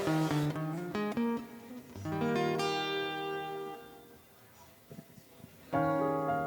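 Acoustic guitar picking a few single notes, then a held chord that fades out, and after a short pause another chord strummed near the end: a guitarist feeling out the key for the next song.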